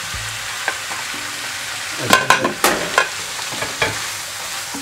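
Cabbage, carrot, beef and green pepper sizzling in a pan while a wooden spatula stirs them. A steady frying hiss, with a few sharp knocks and scrapes of the spatula against the pan, bunched about two to three seconds in and once more near four seconds.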